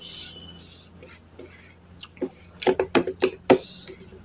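Fingers gathering and mixing rice and curry on a ceramic plate, with a quick run of sharp clicks against the plate in the second half.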